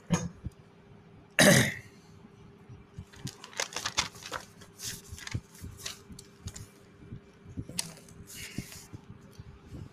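A single cough about a second and a half in, the loudest sound here, followed by scattered small clicks and brief rustles of pen, paper and phone handling over a faint steady hum.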